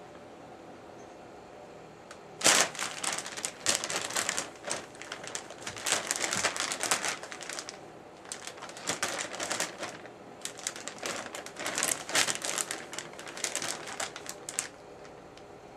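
A plastic bag crinkling in irregular, rapid bursts as a cat moves around in it, starting about two seconds in and stopping near the end.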